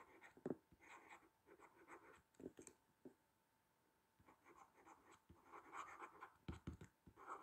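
Faint scratching of a stylus writing a word in cursive on a tablet, in short strokes with brief pauses.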